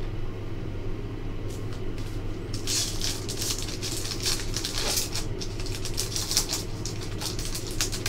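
Foil wrapper of a hockey card pack crinkling and crackling as it is torn open by hand, starting about a second and a half in, over a steady low hum.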